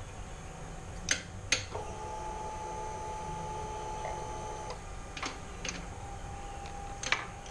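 A few light clicks and taps from wiring connectors and multimeter test leads being handled, with a faint steady tone underneath.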